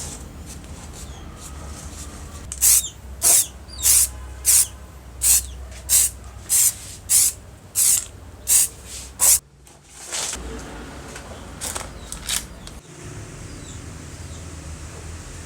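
A run of eleven short, sharp hissing bursts, evenly spaced about two every 1.3 seconds, followed by a few fainter ones, over a low steady hum.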